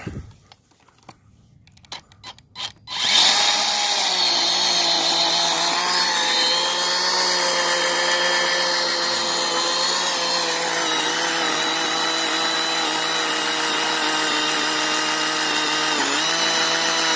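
A brushed-motor electric chainsaw starts about three seconds in and runs steadily while cutting into an oak stump. Its pitch sags slightly a few times under load. Before it starts there are a few light clicks of handling.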